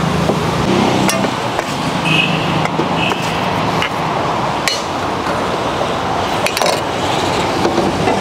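Steel serving ladle clinking against big steel vessels and plates in a few sharp taps, over steady street-traffic noise.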